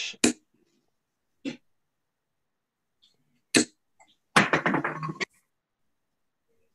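Steel-tip darts thudding into a bristle dartboard, a few short sharp hits a second or two apart, then a short rasping noise like a throat being cleared about four and a half seconds in.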